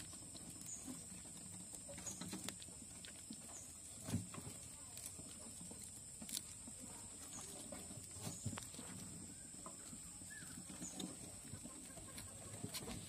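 Faint, scattered clicks, taps and scratches of several white rats scrabbling and feeding in a wooden box, over a steady high hiss.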